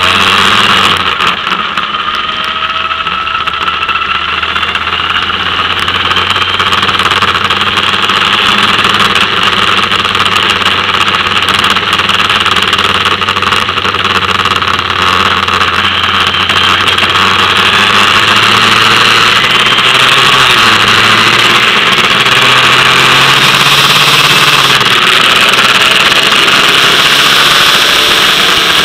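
Formula Ford single-seater's engine running under way, heard from an onboard camera, with a loud continuous rush of wind and wet-tyre spray. It gets louder over the first several seconds, then holds steady.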